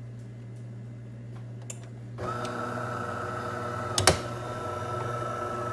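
De'Longhi Magnifica Start bean-to-cup coffee machine starting a motor about two seconds in and running with a steady whine, over a low steady hum. Two sharp clicks sound near the middle.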